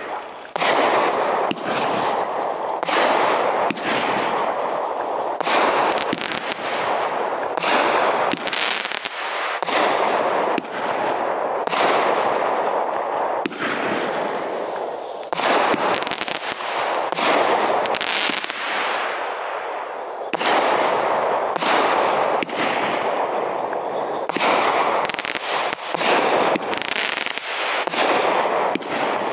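A Brothers Pyrotechnics 'Irish Legend' 30-shot, 350-gram fireworks cake firing shot after shot, roughly one sharp bang a second, with a continuous noisy hiss between the reports.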